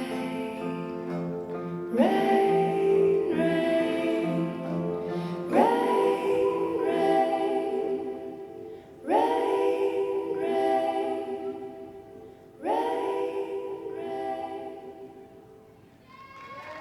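Slow song with singing over sustained chords, a new chord struck about every three and a half seconds, fading out at the end of the song.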